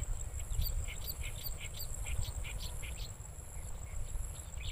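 Rural field ambience: a quick run of short, high chirps, roughly four a second, over a steady high insect trill and a low wind rumble on the microphone.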